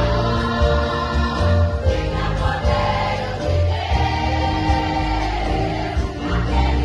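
Gospel worship music: a group of voices singing together over continuous accompaniment with heavy bass.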